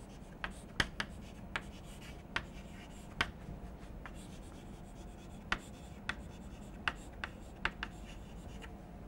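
Chalk writing on a blackboard: about a dozen irregular sharp taps and short scratches as words are written out.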